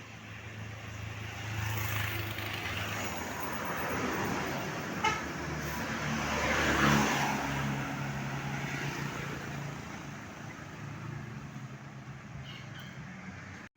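Road traffic passing close by, with the low hum of a heavy engine; the noise swells to a peak about halfway through as a vehicle goes past, then fades. There is a brief high beep about five seconds in.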